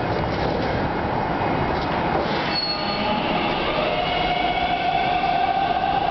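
TTC T1 subway train starting to pull out of the station over a steady rumble, with an electric whine that sets in about four seconds in and slowly rises in pitch as the train gathers speed.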